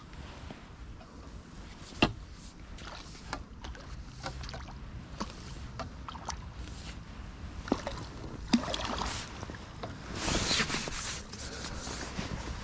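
Water splashing and tackle clicks and knocks while a hooked fish is played in to the landing net at the water's edge. Scattered sharp clicks run throughout, with a loud one about two seconds in, and a burst of splashing comes about ten seconds in.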